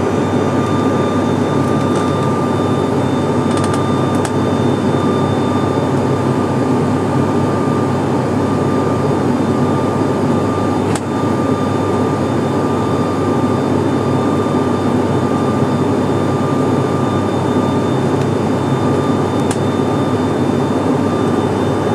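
Twin turboprop airliner in flight, heard from inside the cabin: a steady, loud drone of engines, propellers and airflow, with a thin steady whine above it.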